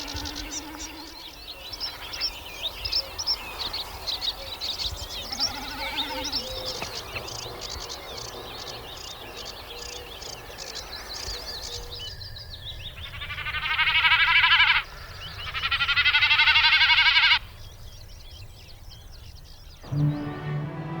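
Common snipe drumming in display dives: two loud, fast-pulsing bleating hums, each about two seconds long and swelling as it goes. The sound is made by wind through the spread outer tail feathers. They come after a stretch of many small birds chirping and calling over marshland.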